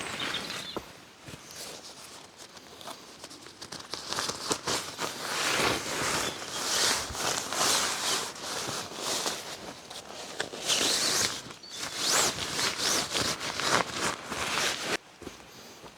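Tarp and hammock fabric rustling and crinkling as it is handled and rigged, in irregular bursts. The sound stops abruptly about a second before the end.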